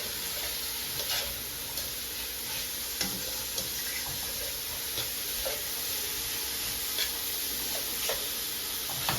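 Chopped vegetables (bora, onion, celery, carrots) sizzling steadily in a hot pan, with a utensil knocking and scraping against the pan every second or so as they are stirred.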